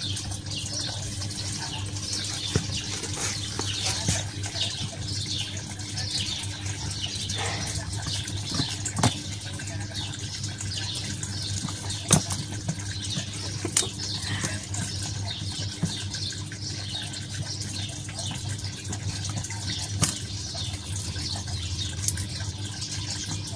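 Small birds chirping constantly over a steady low hum, with a few sharp clicks.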